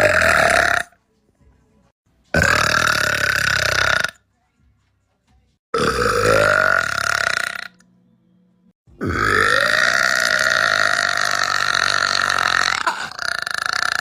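Four powerful, deep burps separated by short silences. The last one is drawn out for about five seconds.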